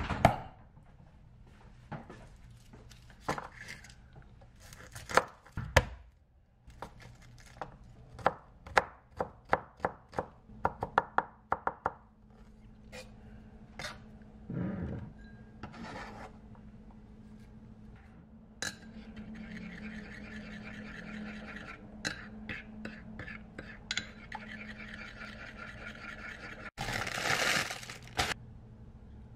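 Santoku knife chopping garlic on a cutting board: a quick run of strikes, about three a second, among scattered knocks. A loud crinkle of a plastic bag comes near the end.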